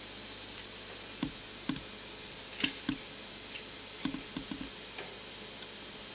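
Irregular light metallic knocks and clicks, a dozen or so in uneven clusters, over a steady high-pitched whine in a railway station.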